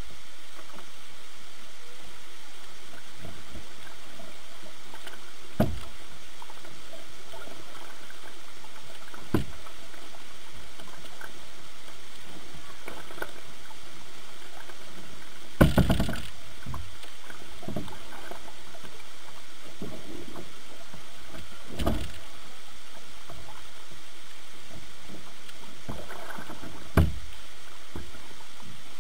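A kayak being paddled, heard from a camera on its bow: a steady wash of water against the hull, broken about five times by short sharp knocks, the loudest about halfway through.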